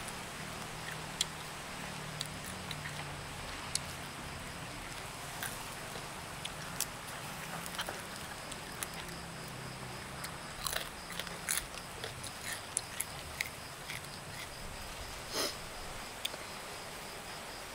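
Crisp cracking and crunching of deep-fried scorpions being snapped apart by hand and chewed: scattered sharp clicks, thickest about ten to twelve seconds in, with one louder crack near the end.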